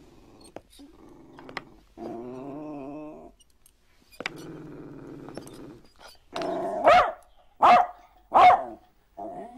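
A Jack Russell terrier growls in two long stretches, then barks three times, sharply and loudly, near the end.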